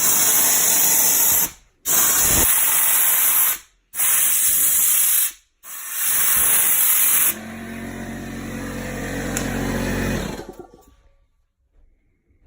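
Four loud hissing blasts of spray, each about a second and a half, cleaning the dust off a furnace's evaporator coil. A motor then hums steadily for about three seconds and winds down.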